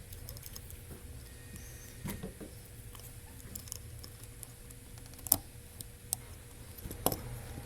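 Scattered light clicks and taps of small tools and parts being handled on a workbench, with a sharper click a little after five seconds, over a low steady hum.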